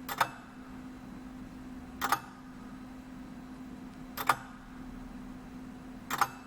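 Large Omega display model of a Swiss lever escapement ticking slowly: four ticks about two seconds apart, each a quick double click. A faint steady hum runs underneath.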